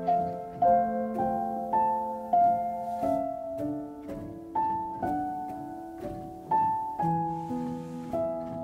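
Background music: a piano playing a melody of separate notes over held lower notes.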